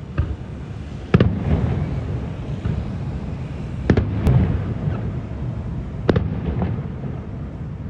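Aerial fireworks shells bursting: four sharp bangs, the biggest about a second, four seconds and six seconds in, each trailed by a rolling, echoing rumble.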